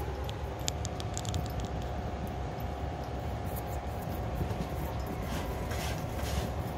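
Cat exercise wheel turning, a steady low rumble of the track rolling on its base, with a few light clicks about a second in.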